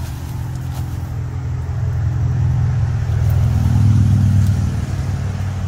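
A low motor or engine hum that builds to its loudest about four seconds in, then eases off.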